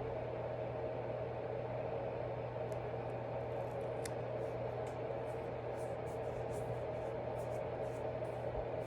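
Steady room background noise: a constant low hum and hiss like a fan or appliance, with faint brief rustles scattered through it.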